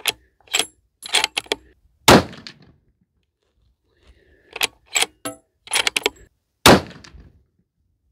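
A Bergara Wilderness Ridge rifle in .300 PRC with a radial muzzle brake fired twice, about two seconds in and about seven seconds in, each shot the loudest sound with a short echo trailing it. Shorter sharp clicks and cracks come in small clusters before each shot.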